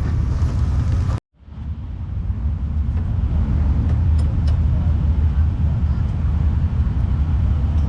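Low, steady rumble of sprint car engines, cut off abruptly about a second in and fading back up.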